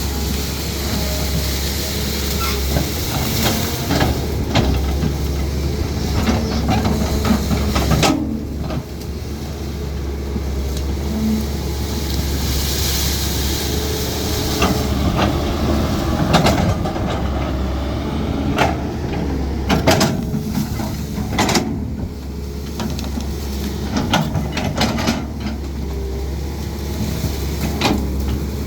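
CAT 320D excavator's diesel engine running steadily under working load, with repeated sharp knocks and cracks as it works.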